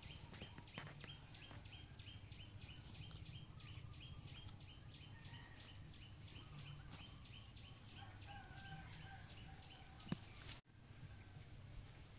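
Faint rural outdoor ambience with a high chirp repeated about four times a second that fades out after about nine seconds, and a single sharp click about ten seconds in.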